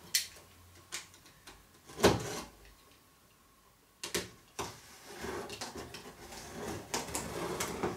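Hands working at a cardboard computer-case box: a sharp knock about two seconds in and another near four seconds, then scraping and rustling on the cardboard through the second half.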